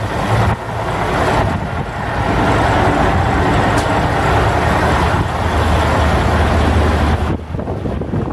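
Mercedes-Benz MBE 4000 12.8-litre inline-six diesel of a 2003 Freightliner FL112 semi tractor idling with a steady low rumble. A louder rushing noise lies over it from about two seconds in and cuts off abruptly about seven seconds in.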